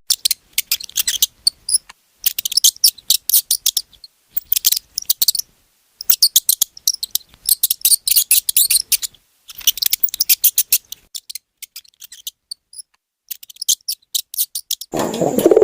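Cricket chirping: rapid trains of high-pitched pulses in bursts of a second or two, separated by short pauses.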